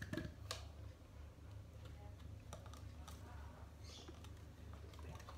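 Faint, irregular light clicks and taps of small objects being handled on a table, the clearest about half a second in, over a low steady hum.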